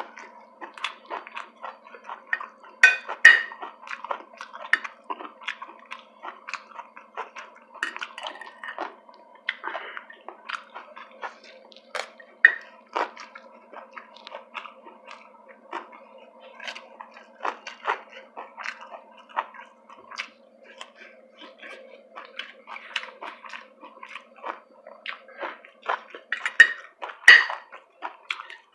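Close-up eating sounds: chewing and wet mouth noises with many short clicks and crackles, louder in a few clusters, over a faint steady hum.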